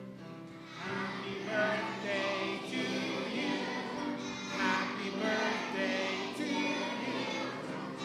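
A hall full of children and adults singing a birthday song together over instrumental accompaniment; the voices come in about a second in.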